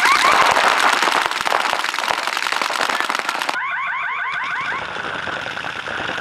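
Electronic game-start alarm warbling in quick rising sweeps, with a dense, rapid clatter of many paintball markers firing at once. A bit past halfway the warbling alarm sounds again for about a second, and lighter marker fire follows.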